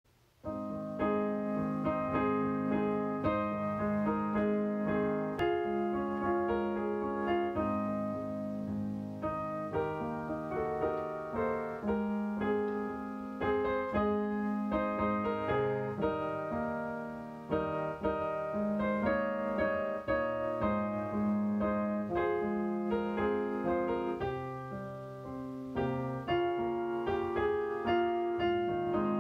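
Solo piano music, a continuous run of struck notes and chords that each fade after they sound, starting about half a second in.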